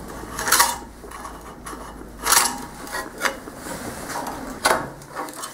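Steel scribe scratching marking lines into steel plate along a straightedge: several short, uneven scraping strokes.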